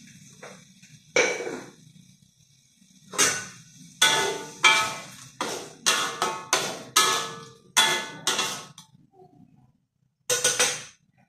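Metal cooking utensil knocking and scraping against a wok as food is stir-fried: about a dozen sharp, ringing clanks, irregular and coming faster in the middle. Near the end there is a quick cluster of clanks.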